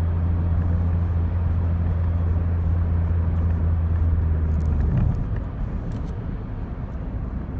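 Cabin sound of a Chevrolet Corsa at highway speed: a steady low engine drone over road and tyre noise. About five seconds in, the drone stops abruptly and the sound drops to a quieter rush of road noise.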